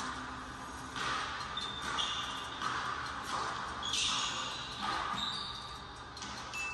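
A basketball dribbled on a hardwood gym floor, the bounces coming about once a second with an echo, and sneakers squeaking on the court several times in short high chirps.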